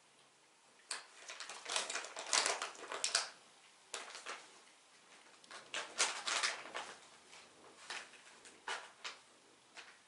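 Empty foil cat-food pouches crinkling and rustling in irregular bursts as cats nose and paw at them, busiest about a second in and again around the middle, sparser near the end.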